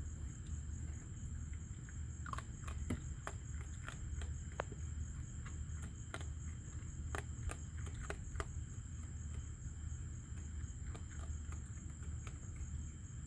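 A raccoon chewing and crunching food, with irregular sharp clicks and cracks coming through most of the clip. Under it runs a steady low hum and a steady high-pitched drone.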